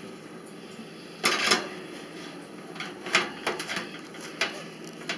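A few light metal knocks and clinks of an oven rack and baking sheet being handled with an oven mitt, the loudest about a second in.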